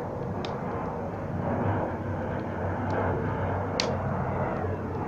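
Wood fire burning in a popcorn-tin wood stove: a steady rushing noise with a few sharp pops from the burning wood, the loudest near four seconds in.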